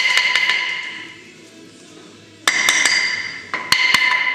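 Sharp metal-on-metal strikes with a clear ringing tone after each, coming in three short clusters: at the start, about two and a half seconds in, and near the end. Tools are knocking against the Suzuki DR-Z400's engine as the cylinder head is worked loose.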